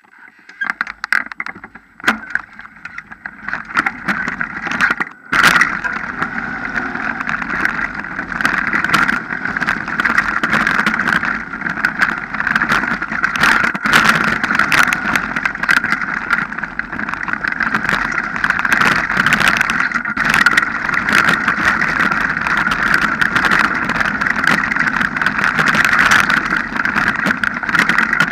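Mountain bike riding fast down a rocky dirt trail, heard through a handlebar-mounted action camera: a steady rush of wind and tyre noise, broken by frequent clattering knocks from bumps.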